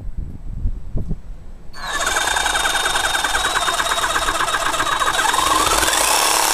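A few low knocks, then about two seconds in a Black & Decker reciprocating saw starts up and cuts into a barrel, its motor whining steadily over the rapid strokes of the blade. Near the end the pitch rises as the saw speeds up.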